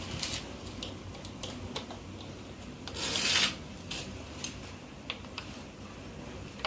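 Hand tools clicking and tapping on the motorcycle engine while a cover is being taken off, with a short scraping rub about three seconds in.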